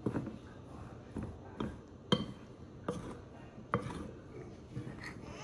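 Metal spoon stirring diced root pieces coated in tapioca starch in a glass mixing bowl, with a soft gritty scraping and irregular clinks of the spoon against the glass, about seven in all.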